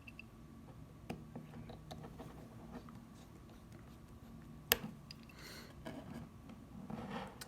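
Faint clicks and light rustling from handling small tools and phone parts, with one sharp click a little past halfway.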